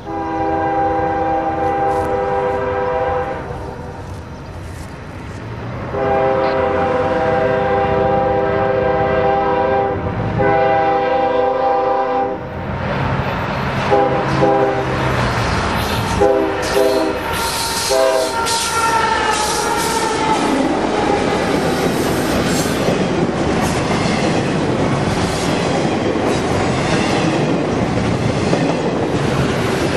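Union Pacific road diesel's multi-note air horn sounds three long blasts, then a few short toots as the locomotives draw near and pass. A double-stack intermodal freight train then rolls by at speed: a steady rush of wheels on rail with clickety-clack over the joints.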